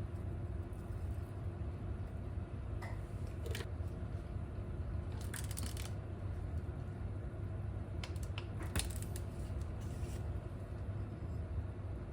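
Kitchen range hood fan running with a steady low hum, with a few short crisp clicks and crackles over it, the clearest clusters about halfway through and a little later.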